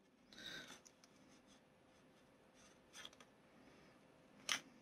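Quiet handling of small plastic model-kit parts and a light's fine wire by hand: a soft rustle near the start, a faint tick about three seconds in and a sharper click near the end.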